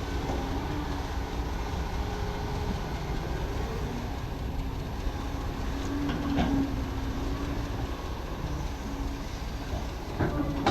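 Excavator's diesel engine running steadily with a humming tone, with two short metallic clanks, one about six seconds in and one near the end.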